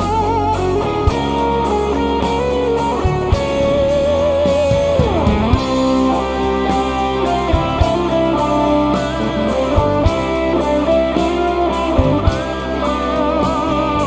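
Live rock band playing an instrumental passage: an electric guitar leads with held notes that waver in pitch and a few slides, over bass guitar, keyboard and drums.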